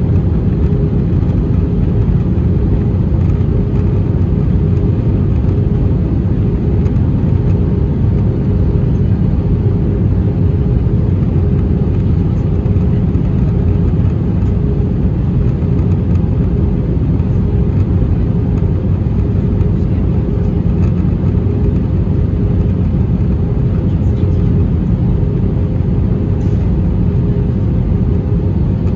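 Steady cabin noise inside an Airbus A320-214 in flight: a low rumble of airflow and its CFM56-5B engines, with faint steady hums over it.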